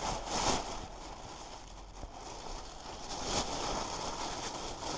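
Thin plastic carrier bag rustling and crinkling as it is handled and held open, in soft swells.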